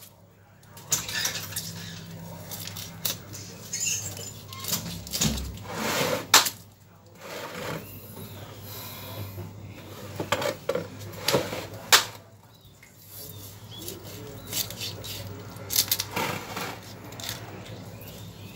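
A knife scraping scales off a Nile tilapia on a wooden chopping block: irregular short scraping strokes and knocks, some sharper than others, over a low steady hum.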